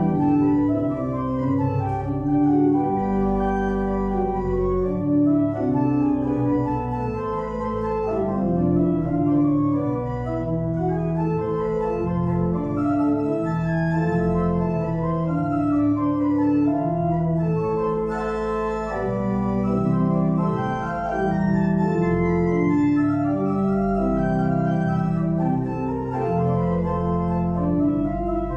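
Organ playing the closing postlude: full chords held and changing every second or so, over a deep bass line, at a steady level.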